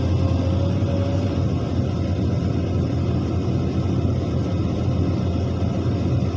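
Heavy diesel construction machinery running with a steady low rumble and a faint wavering whine.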